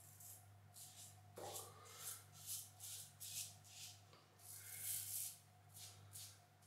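Executive Shaving Braveheart safety razor with a Gillette Nacet blade scraping through three days' stubble on the first pass with the grain: a dozen short, faint scraping strokes, about two a second, with one longer stroke about halfway through.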